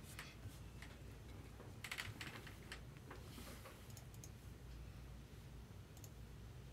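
Faint scattered clicks, with a quick run of them about two seconds in and a brief rustle soon after.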